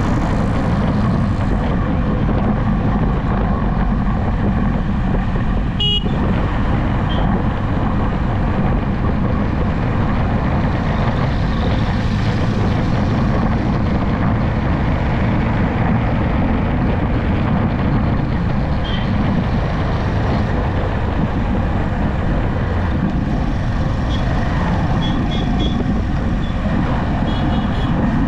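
Steady road and wind noise with engine hum from a vehicle driving at speed. There is a sharp click about six seconds in, and a few faint, short horn toots near the end.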